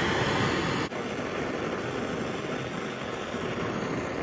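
Oxy-fuel brazing torch flame hissing steadily as brass is run onto a steel oil pan. The level drops slightly about a second in.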